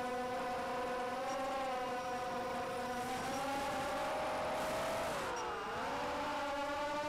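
Brushless motors and 5-inch props of a ZMR 250 racing quadcopter (Emax 2204 2300kv motors, Gemfan 5045 props) whining in flight, picked up by the onboard camera. The pitch holds nearly steady, then dips about five seconds in and climbs back.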